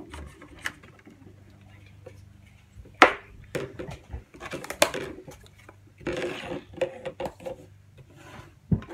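Scattered light clicks, taps and knocks of fruit being handled on a wooden table as blueberries are tipped from a plastic colander onto a plate and spread out. The sharpest knock comes about three seconds in. A knife taps on a cutting board near the end.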